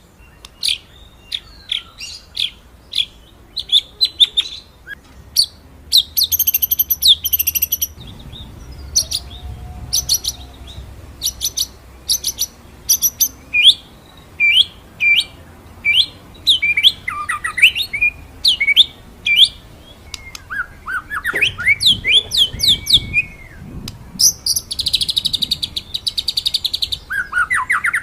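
White-rumped shama (murai batu) singing: a long run of sharp, separate whistled notes, many sweeping down in pitch, broken by fast rattling trills about six seconds in and again near the end.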